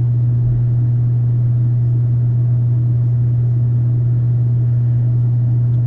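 A steady low hum that holds one pitch and level without change.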